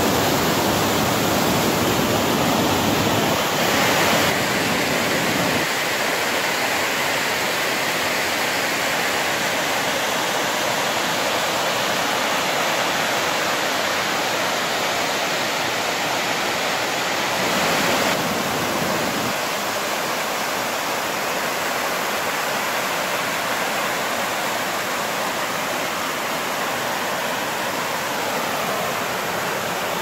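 Whitewater river tumbling over rock cascades: a loud, steady rush of water, swelling briefly twice.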